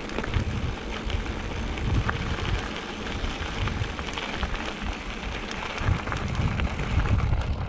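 Mountain bike tyres rolling over a loose gravel track, a steady crackle full of small ticks and rattles, under the uneven low rumble of wind buffeting the camera microphone.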